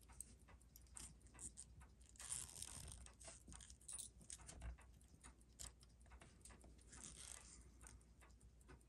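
Faint, scattered small clicks and light rustling from handling small tools and parts, with two brief hissy rustles, one about two seconds in and one near the end.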